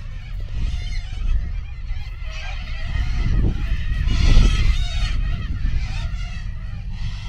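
A flock of birds calling, many raucous wavering calls overlapping one another, over a steady low rumble that swells about halfway through.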